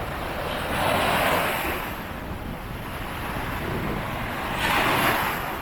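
Surf washing onto the beach in two swells, one about a second in and one near the end, over a steady low rumble of wind on the microphone.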